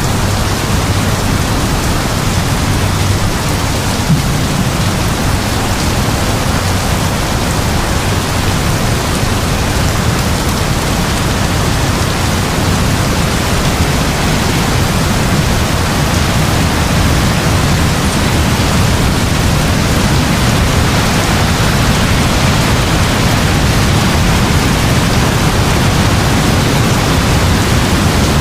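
Heavy rain falling steadily: a dense, even hiss with a deep rumble underneath.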